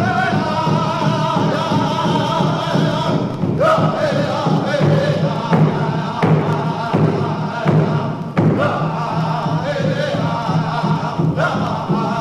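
Background music: drumbeats under a low drone, with chanted vocal phrases beginning every few seconds.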